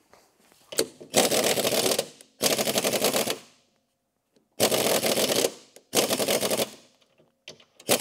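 Pneumatic impact wrench hammering in about five bursts of around a second each, separated by short pauses. It is running a sticky snowmobile suspension bolt out and back in to free it.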